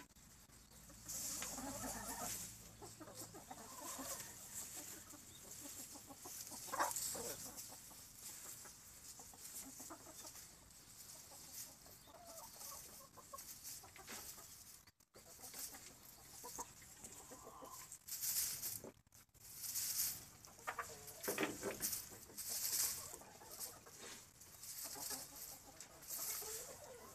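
Hens clucking now and then, with dry rice straw rustling as a hen forages and digs through it for rice grains.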